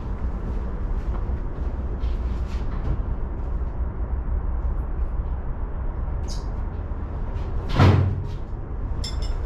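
A steady low rumble, with one dull thump about eight seconds in and a few light clicks just after it.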